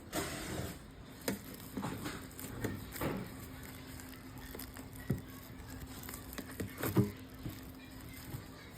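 Irregular knocks and clicks, the sharpest about seven seconds in, with a faint steady hum coming in about three seconds in.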